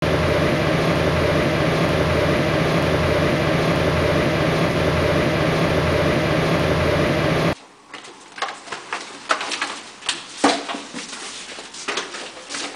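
Steady loud hum and hiss of stir-frying rice noodles in a wok on the stove, with a machine-like drone underneath. It cuts off suddenly about seven and a half seconds in. Scattered light knocks and taps follow in a quieter room.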